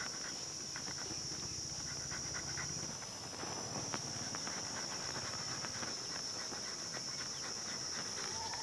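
Soft, rhythmic rasping of dragon fruit flesh rubbed back and forth on a plastic hand grater. A steady, high-pitched insect drone runs underneath.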